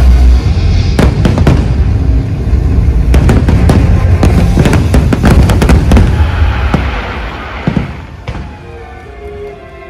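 Aerial fireworks going off in a rapid string of bangs and deep booms, with music underneath. The bursts thin out and fade after about seven seconds, leaving mostly the music.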